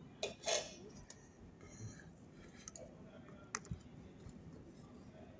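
A few faint clicks and small taps from a soldering iron and solder wire being worked against a circuit-board joint, the loudest about half a second in and another about three and a half seconds in.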